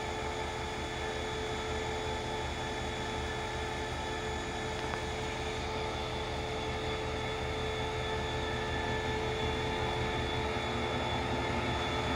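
CRRC Qishuyan (QSY) diesel-electric locomotive running steadily with a low throb and a steady whine as it creeps slowly forward, getting a little louder near the end.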